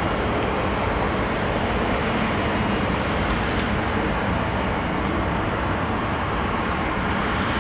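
Jet noise from the two General Electric CF6 turbofans of an Airbus A300-600ST Beluga on final approach to land: a steady, even rush with no change in level.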